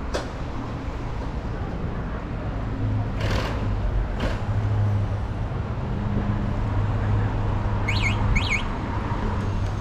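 City street ambience: a steady low traffic hum, with two brief hissing bursts around three and four seconds in and two short high chirps about half a second apart near the end.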